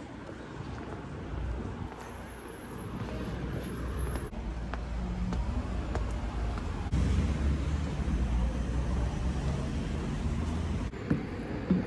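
Vehicle traffic: a steady low rumble that grows louder about seven seconds in and drops away about a second before the end.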